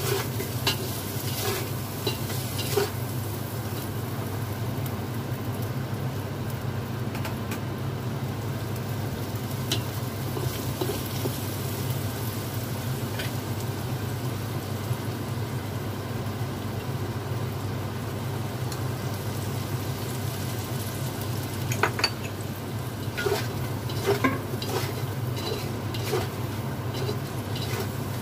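Potato chunks sizzling in oil in a wok while a spatula stirs them, scraping and clinking against the pan. The clinks come in clusters near the start and again in the last several seconds, over a steady low hum.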